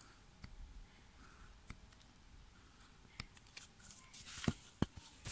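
Faint scraping and small clicks of a carving knife cutting into a wooden board. Two sharper clicks follow near the end as the knife is handled.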